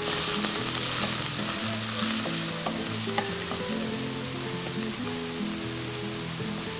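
Eggplant slices sizzling as they are laid into a hot oiled pan: a sudden loud sizzle that gradually dies down, with a few crackles. Soft background music runs underneath.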